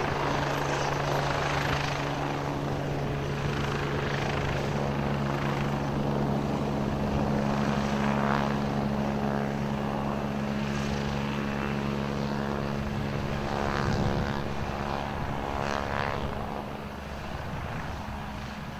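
AgustaWestland AW109SP GrandNew twin-turbine helicopter hovering low and descending to land: steady turbine whine and rotor noise with a few brief swells, getting a little quieter near the end as it settles.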